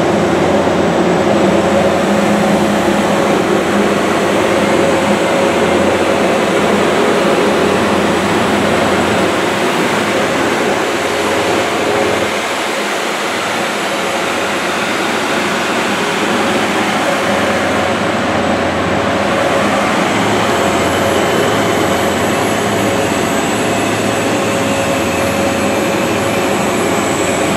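Steady jet-turbine noise: a continuous rushing drone with a thin, steady high whine above it, dipping slightly about halfway through.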